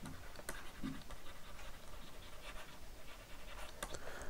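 Faint scratching and small taps of a stylus writing on a tablet, with light breathing close to the microphone.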